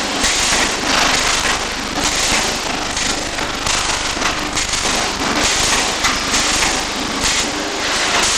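Electric welding arc crackling and sizzling steadily, swelling and easing roughly once a second.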